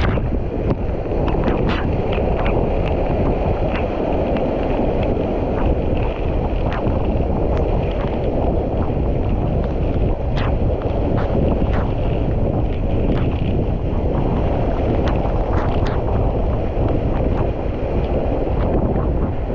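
Wind buffeting the microphone in a steady low rumble, with scattered short water splashes at uneven intervals, typical of paddling a kayak.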